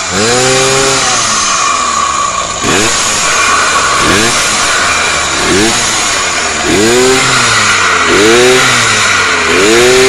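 Two-stroke motorized-bicycle engine, fitted with a cheap adjustable dip-switch CDI on its first advance curve, revved in repeated throttle blips about once a second while the bike stands still. The pitch climbs and falls with each blip over a raspy exhaust note.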